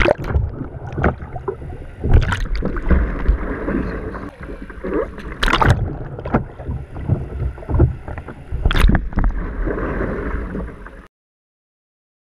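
Pool water sloshing, gurgling and splashing around a capsized kayak and the camera on its foredeck as the paddler sweeps with bare hands to roll back up, with several sharp splashes. The sound cuts off abruptly near the end.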